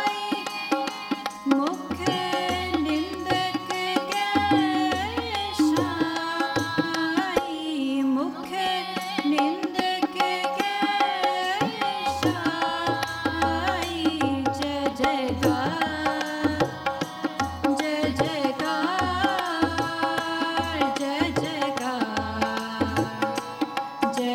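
Sikh shabad keertan: a group of young women's voices singing together over a Yamuna harmonium's sustained chords, with tabla playing a steady rhythm that includes deep bass strokes.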